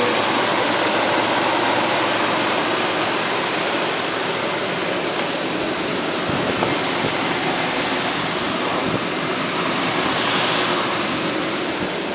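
Old Chevrolet square-body pickup's engine running with the throttle held open, a loud steady rush that eases slightly toward the end.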